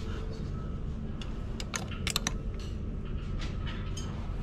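A Toyota JZ straight-six idling with a steady low rumble, seated on newly fitted solid-style Serial Nine engine mounts. A few sharp clicks come about two seconds in.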